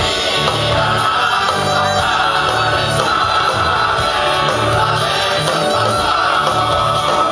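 Live Sardinian traditional music played by a stage band, with voices singing over the instruments at a steady level.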